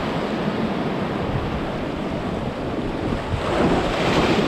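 Ocean surf washing and breaking against jetty rocks, a steady rush of water that swells louder about three and a half seconds in as a wave surges through.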